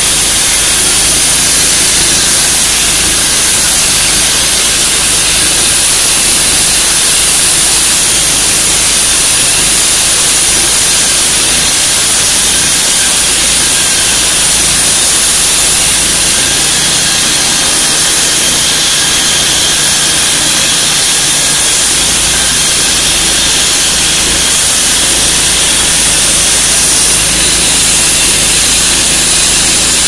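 Walk-behind petrol concrete floor saw running steadily with its diamond blade wet-cutting through a concrete slab: a constant engine drone under a loud, high grinding hiss from the blade in the concrete.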